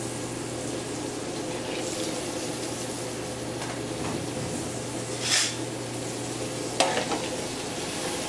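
Sliced mushrooms, peppers, onion and garlic sizzling in butter and olive oil in a skillet on a gas burner. There is a louder hiss about five seconds in and a sharp metallic clank of tongs against the pan near the end as the vegetables are stirred.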